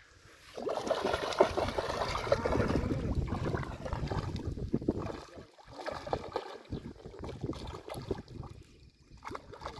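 Hooked carp thrashing and splashing at the surface of shallow water close to the bank. Heavy splashing starts about half a second in and lasts about four seconds, then smaller scattered splashes.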